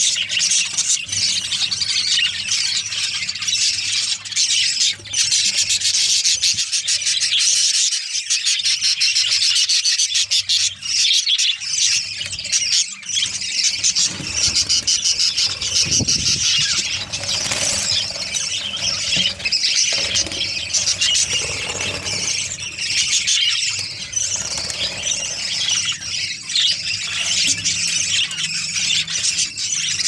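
A flock of budgerigars chattering nonstop, a loud, dense mass of high chirps and warbles from many birds at once.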